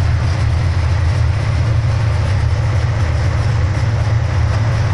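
Carbureted Oldsmobile 350 V8 idling steadily with a low rumble, still warming up. It runs an aftermarket cam, which the owner blames for the rough idle and heavy vibration.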